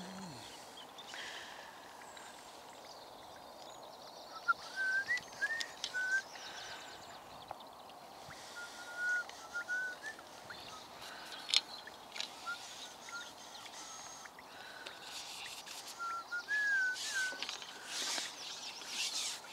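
A small bird singing in four short phrases of whistled chirps, spaced a few seconds apart, over steady outdoor background noise. A few sharp clicks and rustles break in, the loudest near the end.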